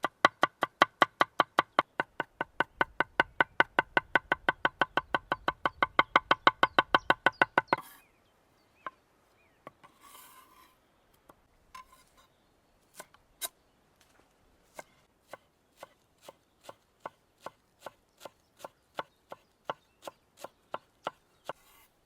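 Knife chopping on a cutting board: a fast, even run of cuts, about five a second, for the first eight seconds or so. Then come a few scattered cuts and a short scrape, before a steadier chopping rhythm resumes near the end.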